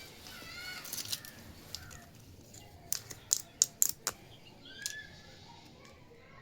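Small plastic toy pieces clicking and tapping together, with a quick run of sharp clicks about three to four seconds in. Faint chirping calls can be heard around them.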